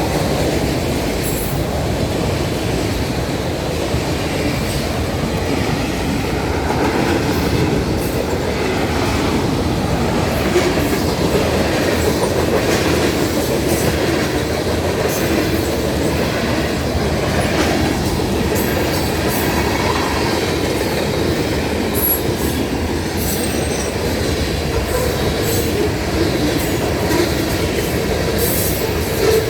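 Freight train rolling past close by: a steady rumble of steel wheels on the rails, with scattered sharp clicks as the cars roll over rail joints.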